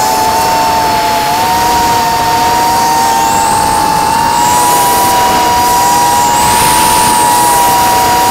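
Brushless motors and propellers of a 180 mm quadcopter whining steadily in flight, heard from its onboard camera: several close tones that step up slightly in pitch a couple of times as the throttle changes, over a hiss of rushing air.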